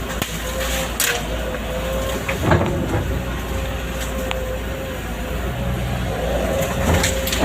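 Excavator's diesel engine running steadily with a held hydraulic-type whine, and a few sharp knocks of metal about one, two and a half and seven seconds in.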